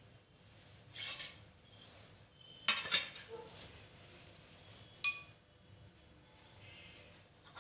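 Metal kitchen utensils clinking and clattering three times: a short rattle about a second in, the loudest clatter with a brief ring about three seconds in, and a single sharp ringing clink about five seconds in.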